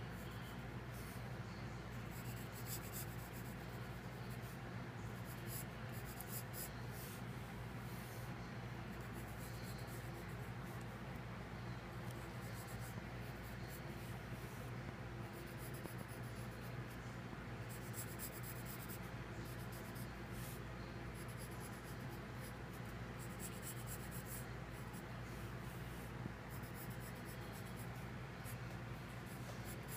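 Wooden graphite pencil sketching on paper: light scratching strokes in irregular runs, over a steady low hum.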